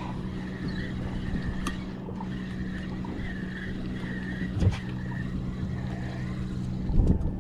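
Steady mechanical hum of a motor running aboard a fishing boat, with a few short knocks on the boat about two, five and seven seconds in.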